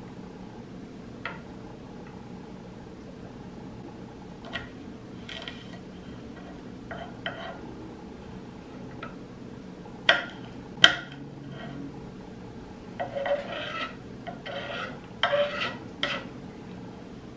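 Kitchen knife cutting green beans on a wooden cutting board: scattered taps, then two sharp knocks past the middle and quick runs of chopping strokes near the end, over a steady low hum.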